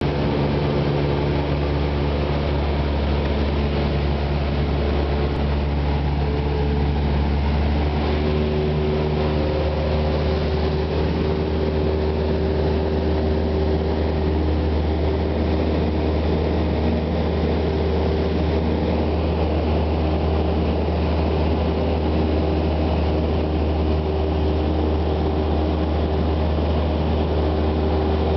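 Cessna 172's piston engine and propeller running steadily, heard inside the cabin.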